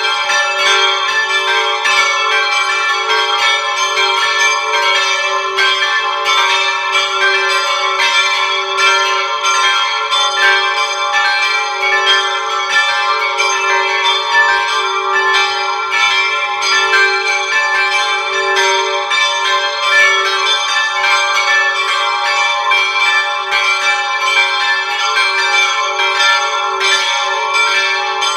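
Church bells ringing continuously: rapid, overlapping strikes over a steady ringing of several bell tones, with no pause.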